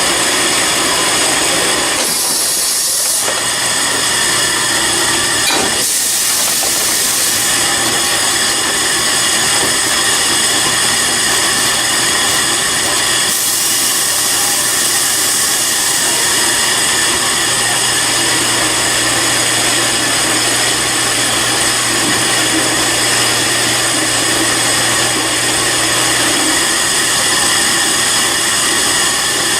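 Industrial machinery running with a steady hum and whine, broken by loud bursts of hissing noise about two, six and fourteen seconds in.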